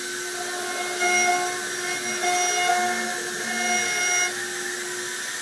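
Stepper motors of a 6090GZ desktop CNC router whining as the gantry and Z axis move, in three moves between about one and four seconds in, the pitch gliding as the motors speed up and slow down. Under the moves runs a steady machine hum that stops about five seconds in.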